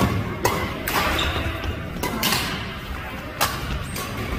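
Badminton rally: racket strings hitting a shuttlecock, about six sharp hits at uneven intervals as it is driven back and forth across the net.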